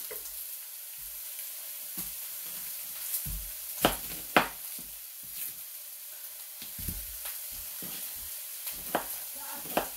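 Vegetables frying in a pan with a steady sizzling hiss, under scattered sharp taps of a knife chopping an onion on a cutting board, the loudest two taps about four seconds in.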